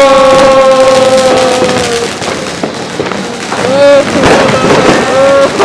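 Fireworks crackling and popping, with people letting out drawn-out "ooh" exclamations, one long held cry at the start and shorter ones near the end.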